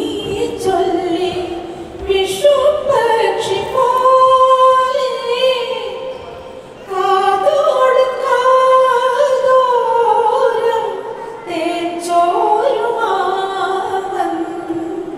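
A woman singing a wordless humming melody from a Malayalam film song, unaccompanied, in long held notes with vibrato. There is a breath break about halfway through.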